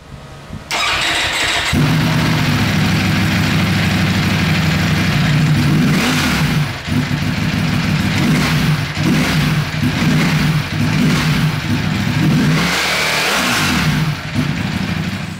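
Ducati Panigale V4 S's 1103 cc V4 engine on its standard exhaust: the starter cranks for about a second, the engine catches and idles, then it is blipped several times, the pitch rising and falling with each rev.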